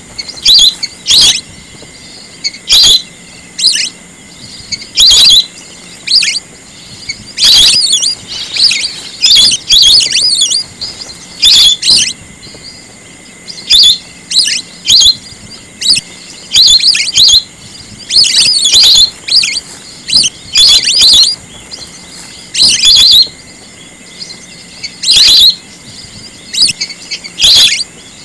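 Whistling ducks (belibis) giving loud, shrill whistled calls in short bursts, repeated irregularly every second or two, over a faint steady high tone; a recording of the kind used as a lure call.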